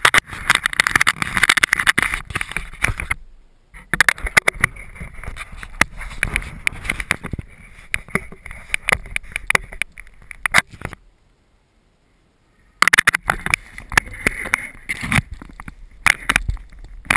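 Handling noise from hands on a wing-mounted GoPro and the foam RC plane: close rubbing, scraping and clicks in three bursts, with pauses after about three seconds and from about eleven to thirteen seconds.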